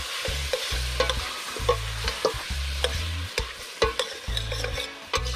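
A metal spoon stirs conch sautéing in a stainless steel pot. It clinks and scrapes against the pot about three times a second over a steady sizzle.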